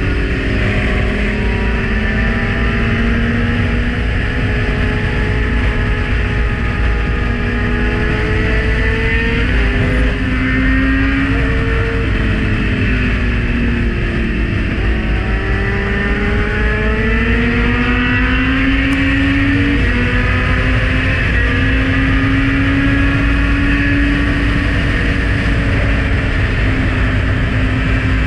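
Kawasaki Z900's inline-four engine running at riding speed, its revs climbing and dropping several times as the bike slows and accelerates through bends, over steady wind rush on the microphone.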